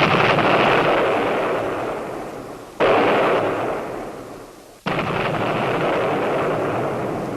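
Artillery guns firing: heavy booms, with fresh shots about three and five seconds in, each dying away slowly over a couple of seconds.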